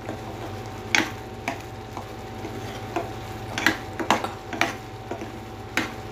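A spoon stirring thick ridge-gourd and moong dal kootu in a pan, knocking and scraping against the pan several times at irregular intervals. A steady faint hum runs underneath.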